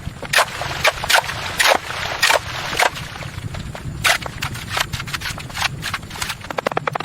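Irregular series of sharp knocks and scrapes, about two a second, over a low steady hum.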